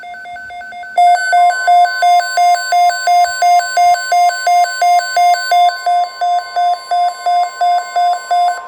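Emergency weather alert: a weather radio receiver's alarm beeping, faint and rapid at first, then loud at about three beeps a second from about a second in, over the steady NOAA Weather Radio warning alert tone that starts shortly after. The alert announces a flash flood watch.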